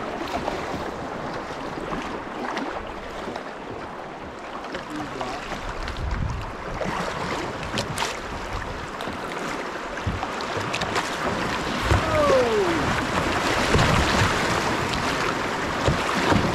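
Water sloshing and splashing around a kayak, with wind buffeting the microphone. The water grows louder in the second half.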